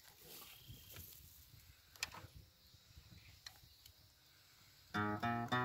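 Faint rustling and a few light knocks of an acoustic guitar being picked up and settled. Near the end, the acoustic guitar starts playing.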